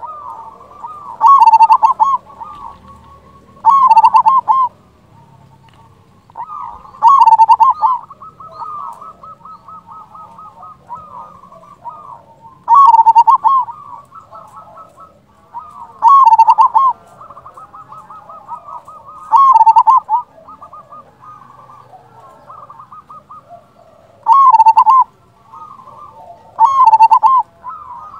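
Zebra dove (perkutut) singing: eight loud cooing phrases, each about a second long and spaced a few seconds apart, with softer rapid cooing between them.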